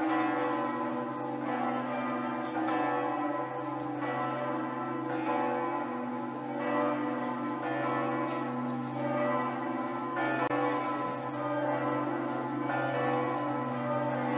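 Church bells ringing: a new stroke about every second over a dense, sustained ring of overlapping tones with a low steady hum beneath.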